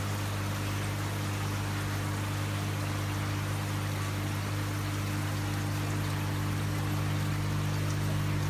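Water running steadily down the glass panel of a floor-standing waterfall fountain into its reservoir, over a steady low hum from the fountain's pump.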